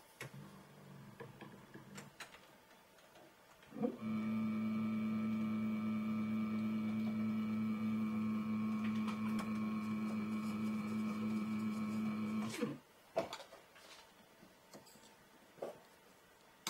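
Homemade CNC router running with a steady, even-pitched whine for about eight seconds, starting about four seconds in and cutting off suddenly. A few light knocks of handling come before and after it.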